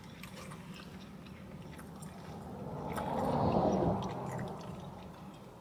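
Soda being drunk from a plastic bottle just after it is uncapped, with a swell of drinking noise a little past halfway that rises and fades over about two seconds.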